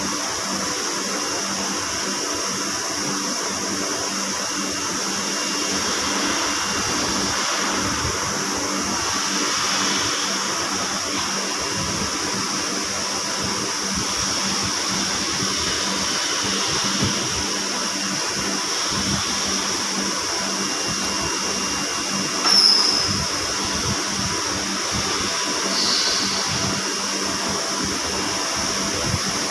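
Steady industrial machinery drone and hiss of a steel fabrication shop. About three-quarters of the way through there is a brief high-pitched squeal, and a smaller one a few seconds later.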